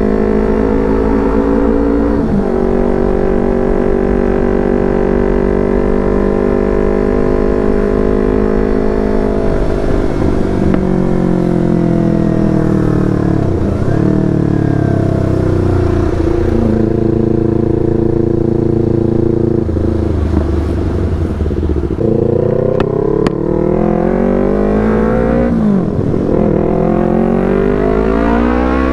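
Yamaha R25 parallel-twin engine through a Proliner TR1R short aftermarket exhaust, under way. The note holds and climbs, drops sharply at several gear changes, and rises steeply again near the end.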